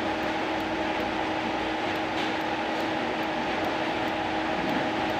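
Steady mechanical hum with a few constant tones over an even noise, unchanging throughout.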